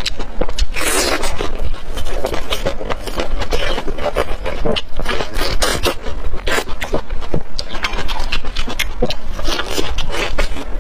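A person biting and chewing grilled green chillies and skewered meat close to a clip-on microphone: a dense, continuous run of chewing clicks and smacks.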